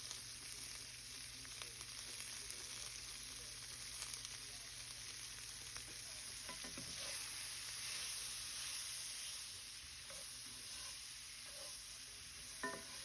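Green beans frying in butter in a cast iron skillet: a faint steady sizzle with scattered small crackles, and a light knock near the end.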